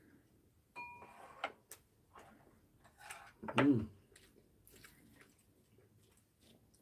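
Meal sounds: scattered light clicks and taps of chopsticks and a spoon against ceramic bowls and a plate, with chewing, and one brief vocal sound about halfway through.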